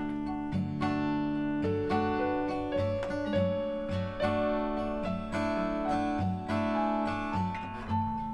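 Instrumental music on acoustic guitar: plucked notes ringing on in a slow, stepping melody over steady lower strings.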